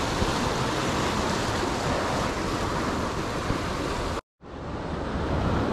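Ocean surf breaking and washing over the boulders of a rock jetty, a steady rushing wash. The sound cuts out completely for an instant a little after four seconds in, then carries on.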